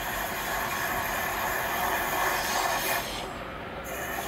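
A train running past, a steady rush of wheel and engine noise; the hissing upper part drops away abruptly about three seconds in.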